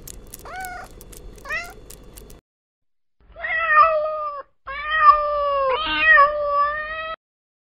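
Cat meowing: two short chirping meows, then after a pause two long drawn-out meows, the last one held for over two seconds.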